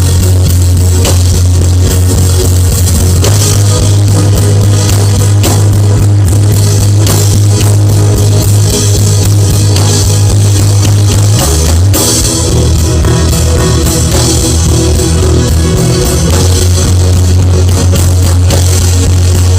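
Loud live worship band playing without singing: steady drum kit, electric guitar and a sustained bass line that changes note about twelve seconds in.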